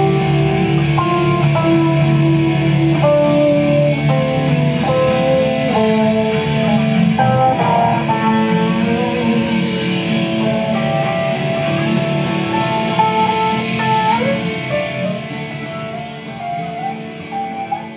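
An electric guitar and an acoustic guitar playing together, the electric picking out a melody of changing single notes over the acoustic. The music grows quieter near the end.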